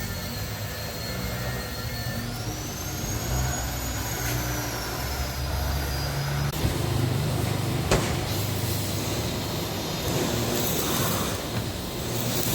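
Peugeot 206 1.4 running with a steady low hum, with a thin high whine that rises about two seconds in and fades away in the middle, and one sharp click about eight seconds in. This is the noise the mechanics put down to a worn driveshaft bearing.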